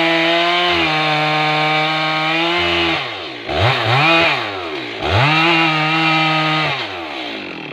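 Two-stroke chainsaw cutting into a large tree trunk at full throttle. It eases off about three seconds in, is revved up twice briefly, runs at full throttle again for a couple of seconds, then drops back toward idle near the end.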